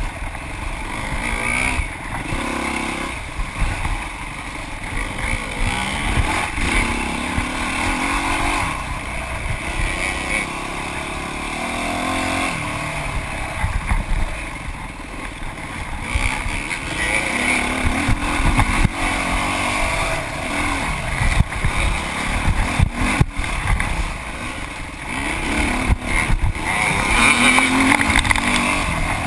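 Off-road dirt bike engine revving up and down as it is ridden hard over rough trail, with wind noise on the microphone. Several sharp knocks come near the end.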